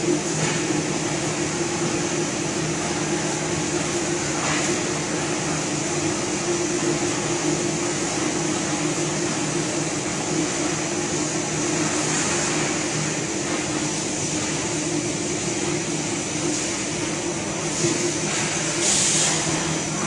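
EPE foam laminating machine running: a steady hum with several held low tones and a constant hiss.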